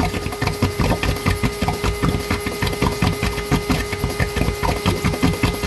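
Small shop vac running, drawing a vacuum through a 12-valve Cummins diesel's oil filler tube so the oil stays in the pan with the drain plug out. It slurps in quick, irregular pulses over a steady hum.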